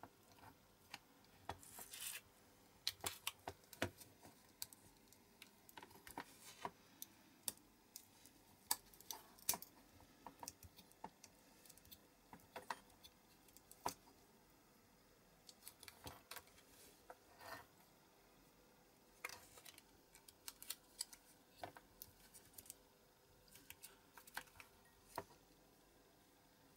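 Irregular small clicks, taps and light scrapes from fingers working at a diecast metal model aeroplane, with quieter stretches in between.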